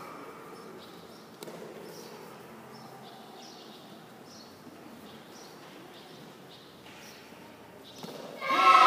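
Quiet, reverberant background of a large hall with faint distant voices and a light knock about a second and a half in. Near the end, loud voices shout out suddenly.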